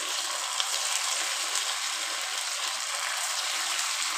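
Chira (flattened-rice) pakora deep-frying in hot oil in an iron kadai: a steady sizzle with small crackles.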